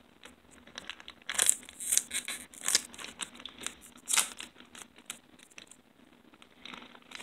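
Trading-card booster pack wrapper crinkling and tearing as it is opened by hand, in irregular crackling bursts.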